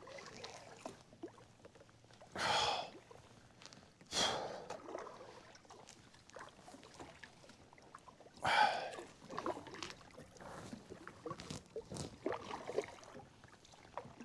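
A kayaker breathing hard, three heavy breaths, while working a kayak through a shallow, muddy creek, with small knocks and splashes from the paddle and hull in between.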